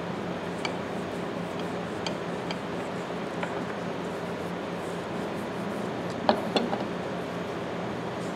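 Steady background hum with a few faint ticks, then two sharp metal clicks close together about six seconds in as the large steel tongue-and-groove pliers are handled and their jaw shifted.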